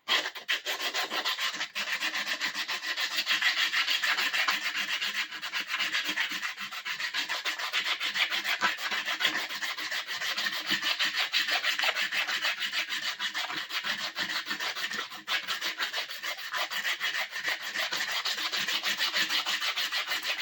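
Sandpaper rubbed by hand over a rough-cut wooden tool handle in quick back-and-forth strokes, taking down the rough edges and splinters.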